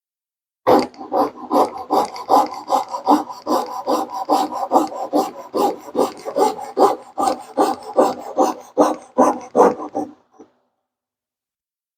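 Coping saw cutting through a wooden board by hand in steady back-and-forth strokes, about three a second. It starts just under a second in and stops about ten seconds in.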